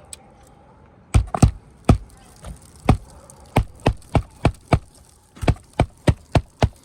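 Hammer striking on an asphalt shingle roof: about fifteen sharp knocks, starting about a second in, uneven at first and then about three a second.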